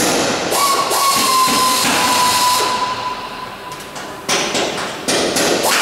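Workshop noise: loud hissing bursts that start and stop abruptly. The first carries a steady high whine that sags slightly in pitch, and two shorter bursts come near the end.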